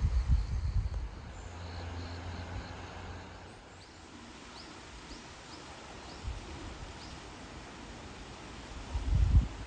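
Outdoor ambience with a small creature's short, high chirps repeating about twice a second, over a faint hiss. Low rumbles on the microphone at the start and again near the end.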